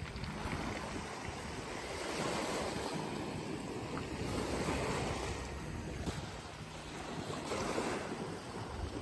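Sea waves washing onto the shore, the surf swelling and easing every few seconds, with wind buffeting the microphone.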